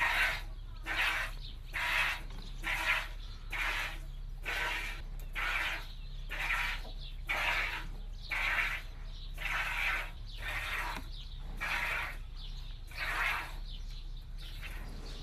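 Milk squirting into a bucket as a cow is milked by hand: a steady rhythm of short hissing squirts, about two a second, with a low steady hum underneath.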